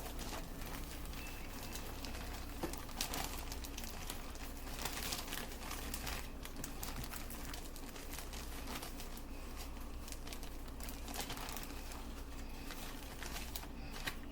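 Crinkling and rustling of a baking-mix bag, with scraping, as the mix is scooped out with a measuring cup to empty the package.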